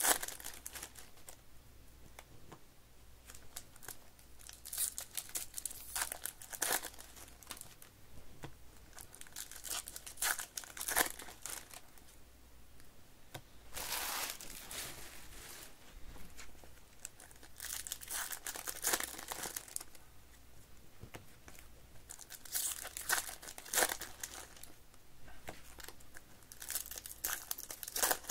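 Foil wrappers of Topps baseball card packs crinkling and tearing as the packs are ripped open and the cards handled. It comes in bursts every few seconds, with a longer stretch about halfway.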